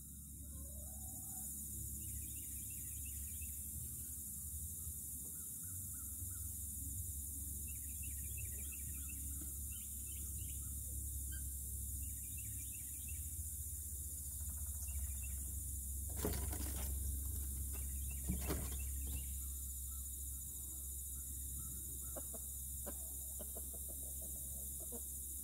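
Outdoor yard ambience with birds chirping on and off over a low steady rumble. Two sharp knocks about two seconds apart stand out a little past the middle.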